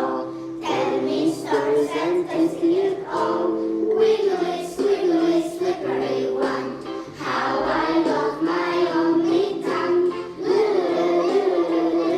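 Group of young children singing an English song together in unison over instrumental backing music.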